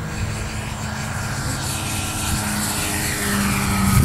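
Large radio-controlled P-47 Thunderbolt model plane (Starmax XXL) flying a low pass. Its motor and propeller grow louder to a peak near the end as it goes by, and the pitch drops as it passes.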